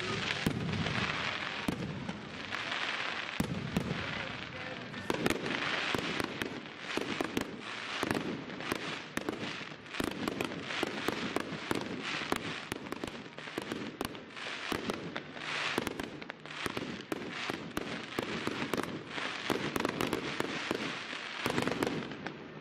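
Fireworks display: aerial shells bursting in quick, dense succession with crackling, a near-continuous run of sharp bangs and crackles.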